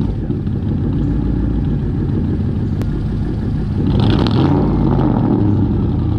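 1997 Ford F-150's 5.4-litre Triton V8 idling steadily through its true dual exhaust, moments after its first start on fresh oil. The engine note swells briefly about four seconds in.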